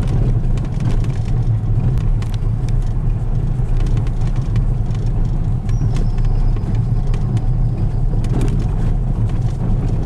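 Car driving slowly over a cobblestone street, heard from inside the cabin: a steady low rumble of engine and tyres with scattered light rattles.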